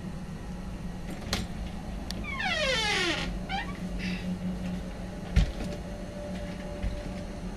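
An animal-like drawn-out cry falling in pitch, then a short second cry, over a steady low hum. A few sharp clicks come before it, and a thump follows about five seconds in.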